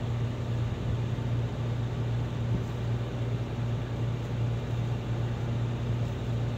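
A farm vehicle's engine idling with a steady, unchanging low hum.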